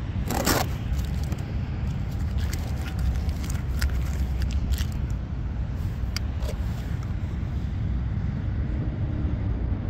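Tape ripped off a wooden boat hatch about half a second in, followed by a few light clicks and handling knocks, over a steady low rumble.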